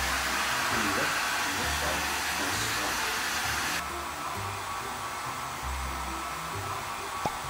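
Hand-held hair dryer blowing steadily, a rushing hiss that drops suddenly in level about four seconds in. A short click near the end.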